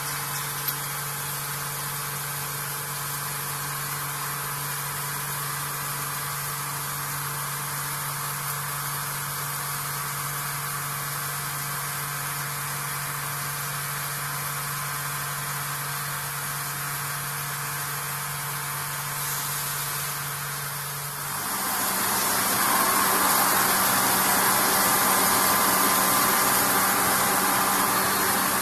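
Vertical machining centre face milling an aluminium part: a steady machine hum with several fixed tones. About three-quarters of the way through the tones change and the sound gets louder, with a strong hiss.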